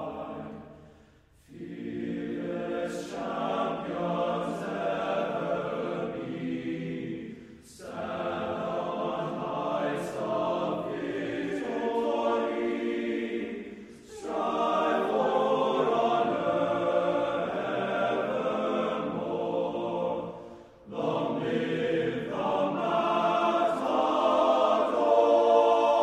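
Choir singing slow, sustained chords in long phrases, each about six seconds, with a short breath-like break between phrases.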